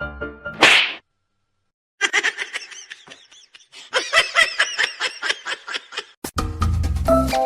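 A quick rising whoosh, then a rapid run of high-pitched laughing calls lasting about four seconds, followed near the end by music with a steady beat.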